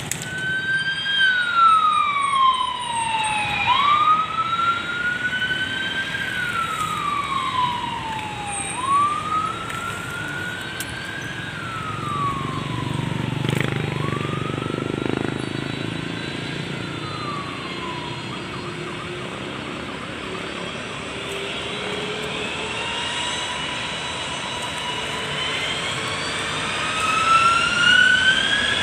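A wailing siren, its pitch sliding down and back up about every five seconds for four cycles before fading out. Then an aircraft's engines come in with a slowly rising whine, growing louder near the end.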